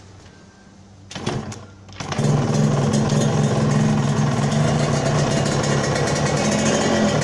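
Yamaha TZM 150 single-cylinder two-stroke engine being started: about a second in it fires briefly and dies, then about two seconds in it catches and runs steadily. The engine has just been brought back after ten years standing, its ignition timing not yet set right by the owner's account.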